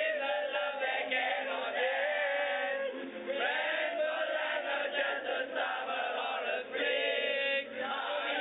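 A group of schoolboys reciting aloud together from sheets, a chant-like chorus of young voices with no break.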